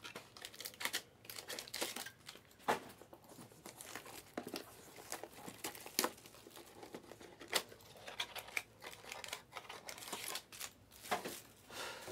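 Plastic wrapping on a sealed trading card box crinkling and tearing as it is handled, in irregular crackles with several sharper rips.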